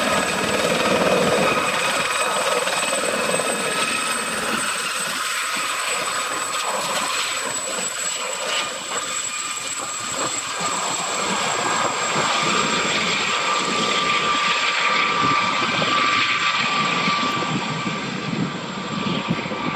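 Aerospatiale SA341G Gazelle helicopter with its Astazou IIIA turboshaft taking off and flying away: rotor noise with a steady high turbine whine.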